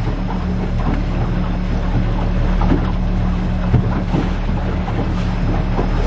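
Outboard motor running steadily at cruising speed, with water slapping and splashing against a small boat's hull at irregular intervals and some wind on the microphone.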